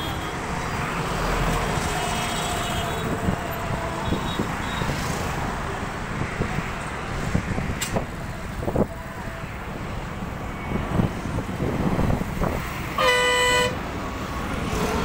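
Steady roar of an IndiGo jet airliner's engines climbing out after take-off, mixed with road traffic rumble. A vehicle horn honks once, briefly and loudly, near the end.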